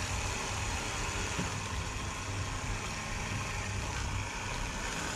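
A motor running steadily: a low hum under an even hiss, switched on about a second before and unchanged throughout.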